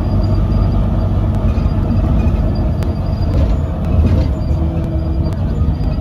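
Interior ride noise of a Volvo B9TL double-decker bus under way: a steady low diesel engine and road rumble, with faint scattered ticks and rattles.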